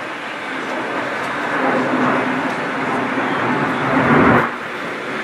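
Grabber crane truck's engine running steadily as the crane works. It swells about two seconds in, then a louder rushing surge near four seconds cuts off abruptly.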